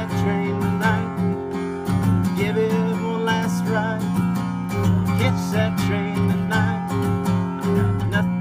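Acoustic guitar strummed in a steady rhythm, full chords ringing.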